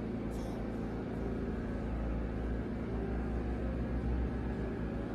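Steady low mechanical hum with a few faint steady tones. About half a second in comes one short, faint scrape of a straight razor shaving the hairline at the temple.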